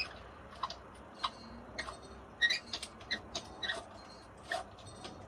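Irregular small clicks and ticks of drawer-knob hardware being handled and fitted: a screw and knob tapping and clicking against each other and against the drawer. There are about a dozen sharp clicks, some with a brief metallic ring.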